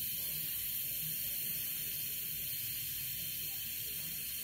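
Instant Pot electric pressure cooker venting the last of its steam through the open release valve, a soft, steady whisper of a hiss. The pressure is nearly down, but the float valve has not yet dropped to unlock the lid.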